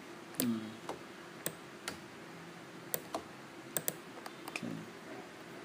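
Scattered sharp clicks from a computer keyboard and mouse, a few at a time, some in quick pairs.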